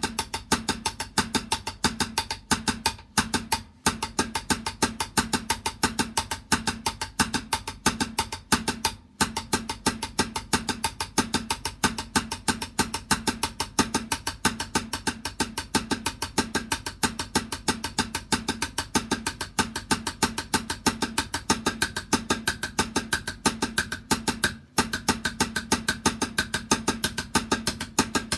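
Drumming at a fast, even beat, with a few very short breaks.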